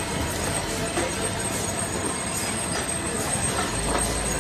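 MIC-ZF20 linear engine-oil filling machine running with a steady mechanical hiss and a few faint clicks while its nozzles fill a row of cans.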